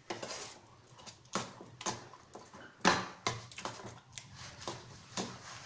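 Steel spoon scraping and clinking against a stainless steel bowl as mashed potato chutney is stirred: irregular knocks and scrapes, the loudest about three seconds in.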